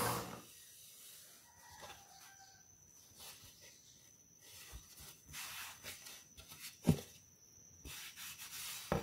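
Hands handling a freshly sanded plywood board, with faint rubbing and brushing of palm and fingers over the wood surface. Two short knocks of wood against wood come near the end.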